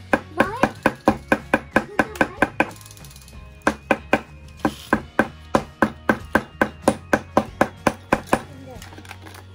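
Small metal hammer tapping a nail into a thin wooden craft-house panel: quick, even light taps about four or five a second. They stop briefly around three seconds in, start again and thin out near the end.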